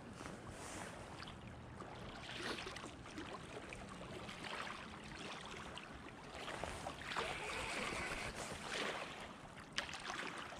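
River water flowing and washing against a rocky bank, a steady rushing noise with irregular swells, and a single sharp click near the end.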